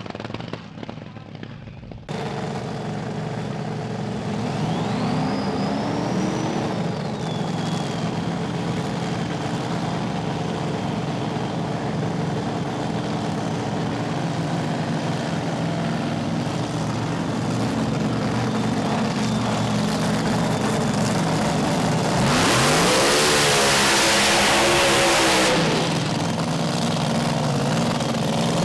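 Top Alcohol Dragster engine idling, then revving hard for about three seconds in a burnout before dropping back to idle.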